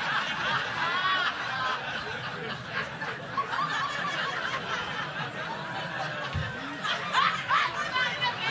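Comedy club audience laughing at a punchline: many overlapping laughs and chuckles, swelling again about seven seconds in.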